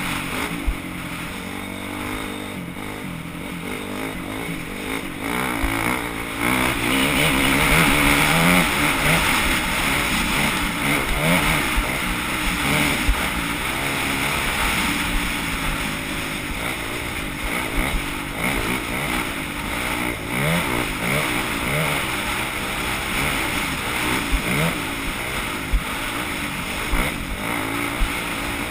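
Off-road motorcycle engine running and revving, its pitch rising and falling over and over as the throttle opens and closes, loudest about eight seconds in.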